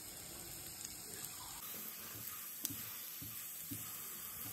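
Chopped garlic sizzling gently in melted butter in a frying pan: a soft, steady hiss.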